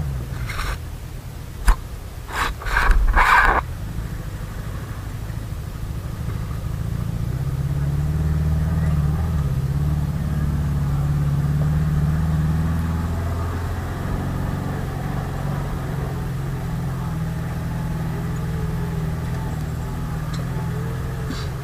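A Suzuki jeep's engine running, heard from inside the cab as it drives. It grows stronger for a few seconds about halfway through, then eases back. A few short, loud knocks and bangs come in the first few seconds.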